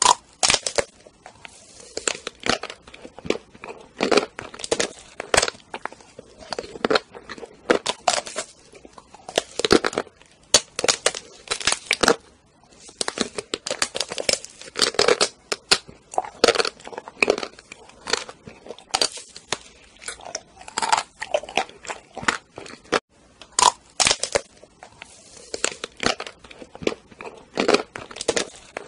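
Biting into chocolate-coated ice cream bars: the hard chocolate shell, studded with nut pieces, cracks and crunches in many sharp, irregular snaps, with chewing between bites.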